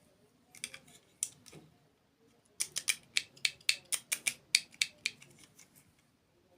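Close-miked crunchy chewing of a dessert: a few crunches in the first second and a half, then a quick run of sharp crunches, about four a second, for a couple of seconds before it fades out.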